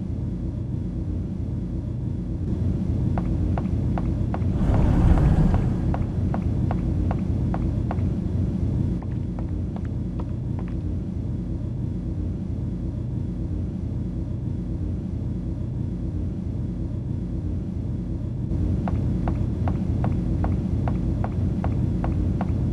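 Steady low spaceship-interior rumble, with runs of quick light clicking footsteps of the walking android, from about two and a half to nine seconds in and again over the last four seconds. A short whoosh swells about five seconds in.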